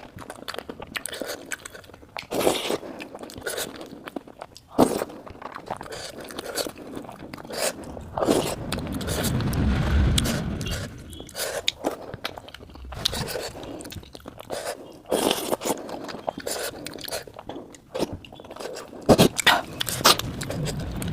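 Close-miked eating of jhol momos, dumplings in spicy soup: chewing and biting with many irregular sharp clicks and mouth smacks.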